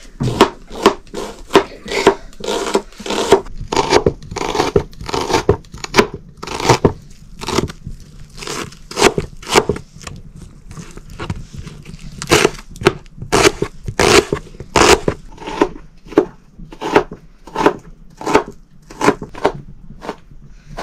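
Kitchen knife chopping red onions on a cutting board: an uneven run of crunchy chops, about two strokes a second.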